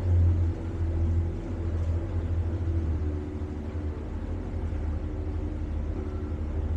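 Tour boat's engine running with a steady low hum, slightly louder in the first second or so.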